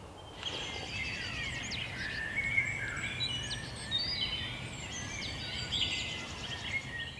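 Several songbirds singing at once in a dense chorus of chirps, whistles and trills, starting about half a second in, over a steady low rumble.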